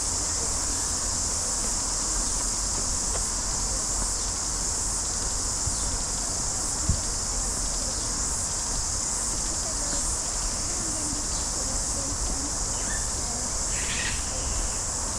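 Steady high-pitched chorus of insects, with one sharp click about halfway through.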